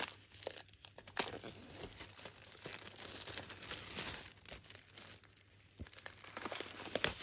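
Plastic wrapping being torn open and crinkled off a boxed Blu-ray set, in irregular crackling tears with small clicks.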